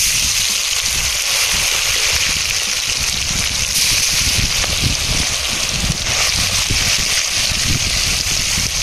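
Pomfret fish pakora deep-frying in hot oil: a steady, loud sizzle that starts and stops abruptly.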